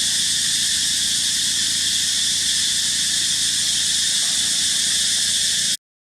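Steady high-pitched outdoor hiss, even and unbroken, that cuts off suddenly for a moment near the end.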